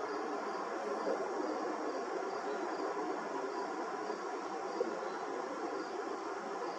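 Faint, regular high chirping of insects over a steady background rumble.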